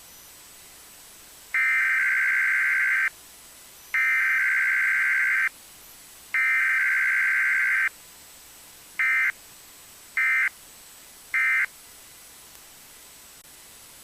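Emergency Alert System SAME digital data bursts, a warbling two-tone squeal. The header is sent three times, each burst about a second and a half long, and then the three short end-of-message bursts follow about a second apart, with no attention tone between them. A low steady hiss sits underneath.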